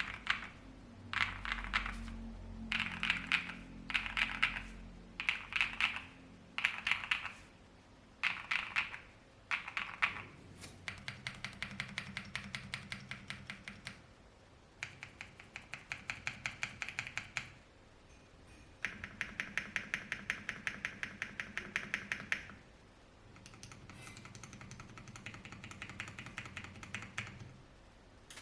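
NEO65 mechanical keyboard, built with all-foam dampening, a POM plate and NEO White switches, being typed on. For about the first ten seconds the keystrokes come in short bursts, then in long runs of rapid, evenly spaced key presses.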